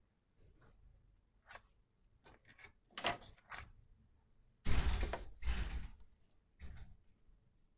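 A series of short rustling and scraping handling noises as a plated dessert is garnished by hand, the loudest two coming back to back a little past halfway.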